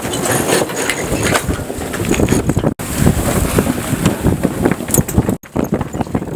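Wind buffeting the microphone aboard a sailing yacht under way, a gusty rushing noise that cuts out suddenly twice.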